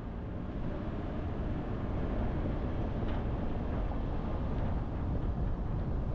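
Steady road and wind noise of a car driving, a deep rush with no clear engine tone, growing a little louder over the first two seconds.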